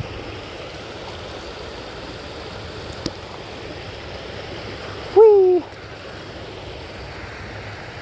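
Steady rush of creek water running over a riffle. A single click comes about three seconds in, and a little past five seconds a person's voice gives a short call that falls in pitch.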